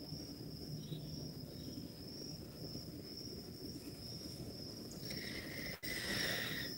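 Faint cricket chorus: a steady, high, gently pulsing trill. About five seconds in, a louder rustling noise joins, with a brief click.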